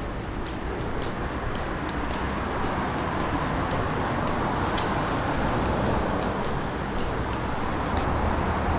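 Steady road noise of a moving vehicle, growing a little louder, with a run of light ticks over it at a few per second.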